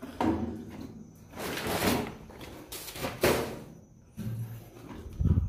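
Water thrown by the bowlful over a boat's engine and wooden engine bay, landing in several sharp splashes about a second apart to soak off oil and grime.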